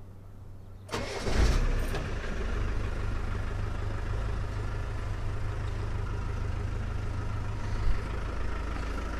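1992 Land Rover Defender 90 engine cranking and catching about a second in, then settling into a steady idle, with a short louder blip near the end.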